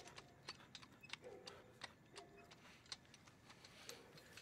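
Faint, irregular clicks and light taps over a quiet room background, with a few brief faint tones in between.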